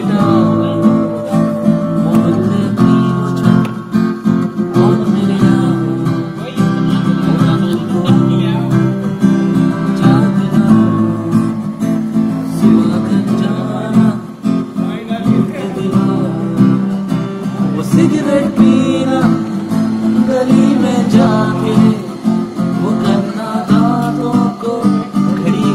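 Acoustic guitar strummed continuously, with a man singing along to it.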